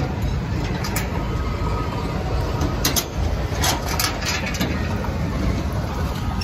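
Steady low rumble of heavy engines running at a landfill, mixed with wind on the microphone, with a few sharp clicks and knocks about three to four seconds in.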